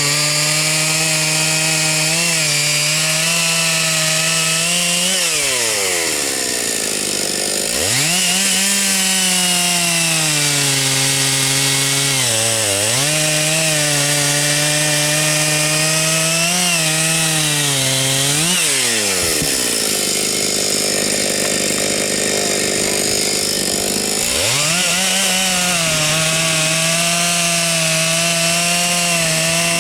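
Husqvarna 272XP two-stroke chainsaw at high revs, cutting through logs. Its engine note sags under load and drops away twice as the throttle is let off, then climbs back for the next cut.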